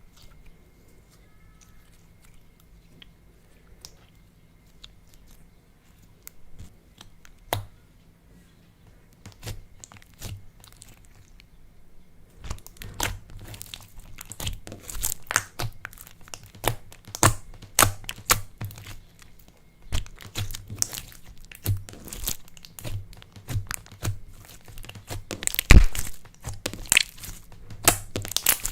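Clay slime being kneaded and stretched by hand, giving sticky crackling and popping. The pops are sparse and faint at first, then come thick and loud from about twelve seconds in.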